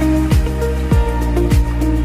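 Background music with a steady beat: low thumping drum hits a little under two a second under sustained instrumental notes.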